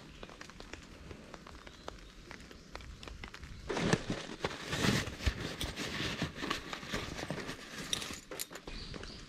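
Fabric rustling and crinkling as guy ropes are pulled out of a small drawstring stuff sack by hand. Soft rustling at first, then louder from about four seconds in, with many small clicks and scrapes of rope and fabric.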